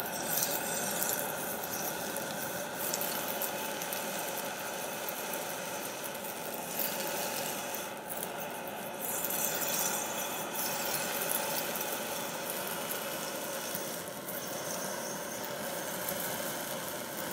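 A 100,000 BTU high-pressure propane wok burner running at a high flame: a steady jet hiss with a few faint steady tones in it. Water is boiling in the wok above it.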